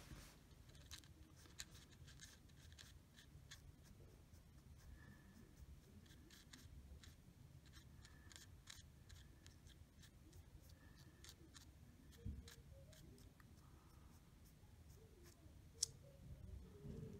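Faint scratching and small clicks of a plastic razor blade scraping old black adhesive off a delidded CPU heat spreader, with one sharper click near the end.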